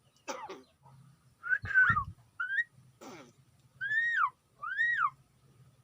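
Pet talking bird whistling: a few short clear whistles, then two arched whistles about a second apart, each rising and then falling in pitch. A brief low thump comes about two seconds in.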